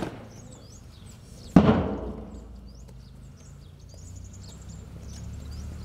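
A single heavy thud about one and a half seconds in, fitting a squad of cadets' boots stamping together on stone paving at a drill command. Birds chirp through the rest of it over a low outdoor rumble.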